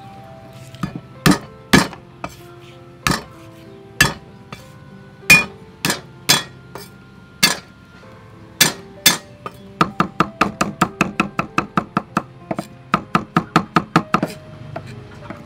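Cleaver striking garlic cloves on a wooden chopping block: single hard chops about a second apart, then rapid even chopping at about five strokes a second as the garlic is minced, stopping shortly before the end.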